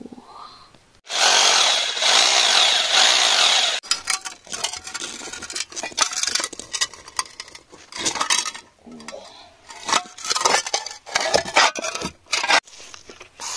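Loud rough scraping noise for about three seconds, then irregular bursts of scraping and crackling.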